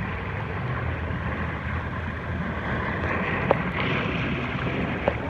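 Rushing, splashing water on a water-park river-rapids ride, with wind rumbling on the microphone. Two sharp knocks, one a little past halfway and one near the end.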